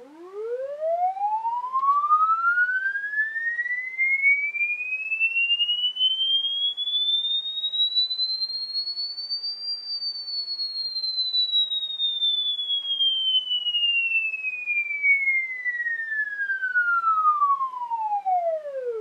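Test tone from a sweep generator: a single pure tone gliding smoothly up from a low pitch to a high whistle over about ten seconds, then sliding back down again.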